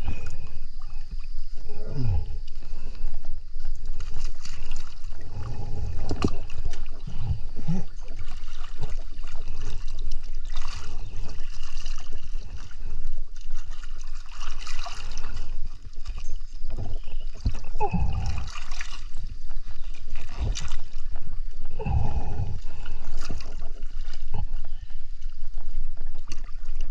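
Water sloshing and gurgling close to the microphone, over a steady low rumble, with several louder irregular bursts.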